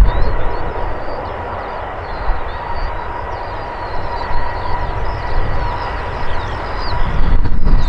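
Embraer 145's two rear-mounted turbofans as the jet rolls out along the runway after landing: a steady jet rush with an even whine in it, and a low rumble that swells again near the end.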